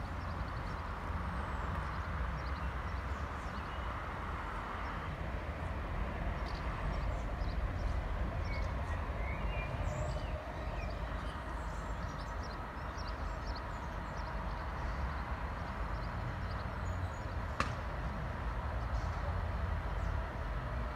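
Outdoor trackside ambience: a steady low rumble with scattered short high chirps, and a single sharp click about three-quarters of the way through.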